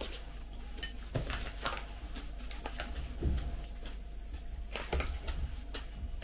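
Scattered light clicks and clinks of a spoon against a ceramic bowl as it is set down in the porridge, with rustling as a paper packet is picked up and handled.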